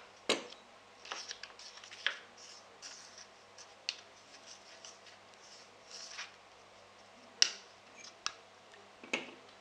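Plastic spoon stirring and scraping flour and water into a thick paste in a small plastic bowl, with scattered soft scrapes and light clicks against the bowl; the sharpest click comes about seven and a half seconds in.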